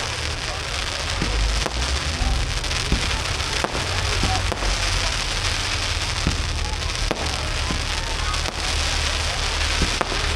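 Fireworks display: a dense crackling haze with sharp bangs every second or two, over a low rumble.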